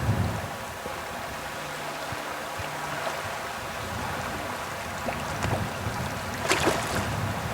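Steady rush of river water, with a brief louder noisy burst about six and a half seconds in.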